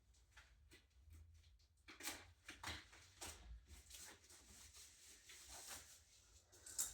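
Faint handling noises: scattered soft clicks and rustles, loudest about two seconds in and again near the end, over a low hum.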